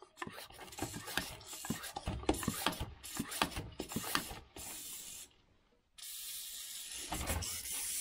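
Hand-pump garden pressure sprayer being worked to push glycol brine into a ground source heat pump's circuit: a run of quick rubbing, clicking strokes for about four seconds. After a brief cut, a steady hiss follows, which the owner takes for small leaks at the fittings as the pressure rises.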